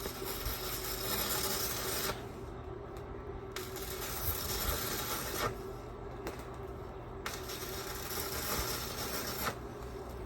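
Electric arc welding: three bursts of hissing crackle, about two seconds each, with short pauses between, as purlins are welded.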